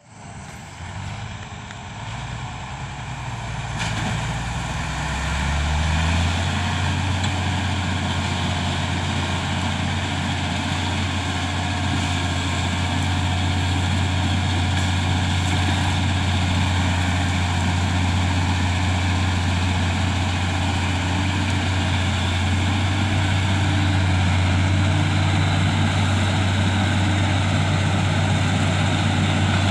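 Heavy diesel engines of a crawler bulldozer and a loaded log truck working on a muddy road, growing louder over the first six seconds and then holding a steady low drone.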